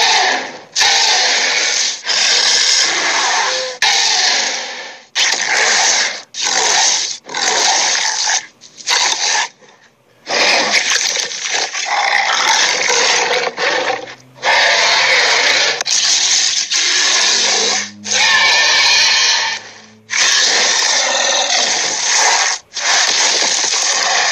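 Cartoon bull-monster (Minotaur) vocal effects: a string of about a dozen rough, breathy growls and heavy breaths, each lasting half a second to two seconds, with brief gaps between them.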